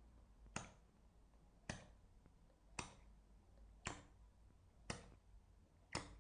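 Hand-pump vacuum cupping gun and plastic cup clicking sharply about once a second, six times, as the cup is repeatedly suctioned onto the skin and released in flash cupping.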